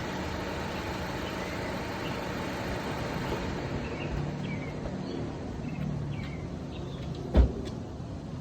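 Steady hum of a car engine idling, with a few short bird chirps in the middle and a single loud thump near the end.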